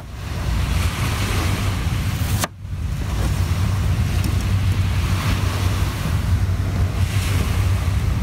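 Steady wind buffeting the microphone with the wash of surf behind it, a loud low rumble under an even hiss. It dips briefly about two and a half seconds in, then carries on.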